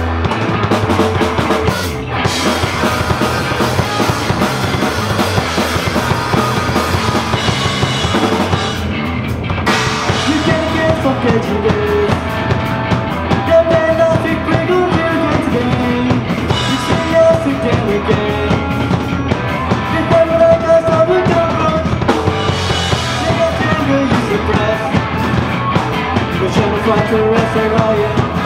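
Live rock band playing: electric guitar, bass guitar and drum kit, with a singer's voice joining about ten seconds in.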